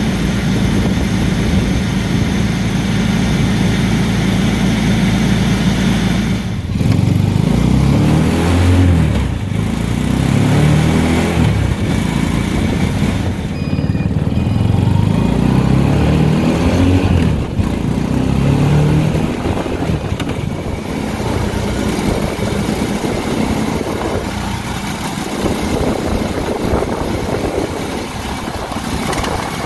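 Small single-cylinder 150cc pit-bike engine powering a mini Jeep. It runs steadily at first. From about six seconds in it rises and falls in pitch several times as the Jeep accelerates, then settles into a rougher, steady drone while cruising.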